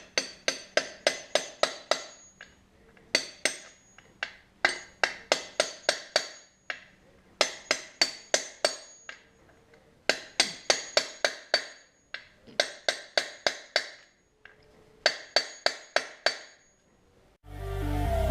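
Hammer tapping on the back end of a steel punch to drive a clutch shaft bearing into an 80cc motorized bicycle engine's housing. Quick ringing metallic taps, about five a second, come in seven bursts with short pauses between them. Background music comes in near the end.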